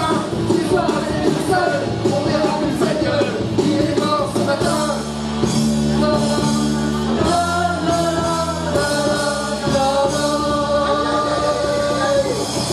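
Live rock band playing, with drum kit, electric bass and electric guitar, and voices singing over it; in the second half the singers hold long notes.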